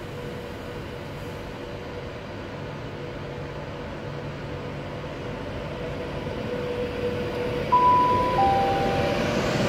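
Class 390 Pendolino electric train pulling away from the platform, with a steady electric hum and a growing rumble of wheels as it gathers speed. Near the end, a loud two-note chime sounds, high then low: the station public-address chime before an announcement.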